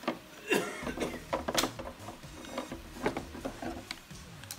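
A corded drill being pressed down into its moulded plastic carrying case: a string of hard plastic clicks and knocks, loudest in the first two seconds, with a few lighter ones around three seconds in.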